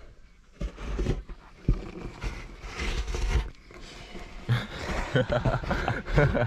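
Plastic card scraping clumps of old, sun-softened wax off a surfboard deck in rough, uneven strokes.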